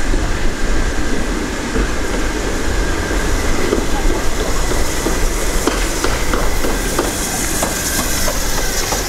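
Ivatt Class 2MT 2-6-2 tank steam locomotive running light past at low speed, its wheels rumbling with a run of clicks over the rail joints and pointwork, and a hiss of steam building near the end.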